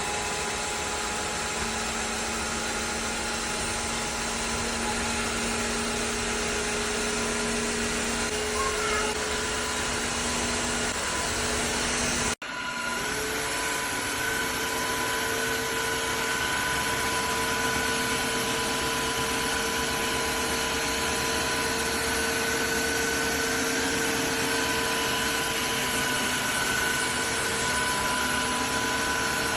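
Tineco iFLOOR 3 Breeze cordless wet-dry vacuum mop running steadily, its motor whine over a rushing noise. It cuts out for an instant about twelve seconds in, then carries on with a higher whine.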